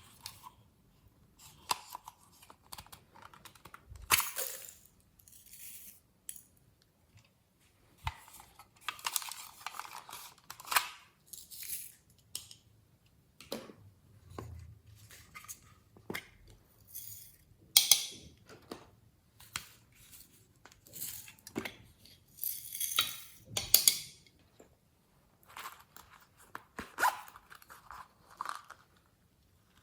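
Glossy slime being worked by hand, giving irregular sticky crackles, clicks and tearing sounds, with a few sharper pops along the way.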